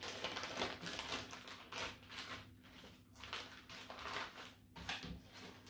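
Crinkling and rustling of a paper instruction sheet and a small plastic accessory bag being handled and opened: an uneven run of short crackles.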